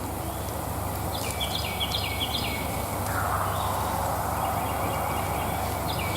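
Wild turkey gobbling, with a short high birdsong phrase heard twice over a steady low background hum.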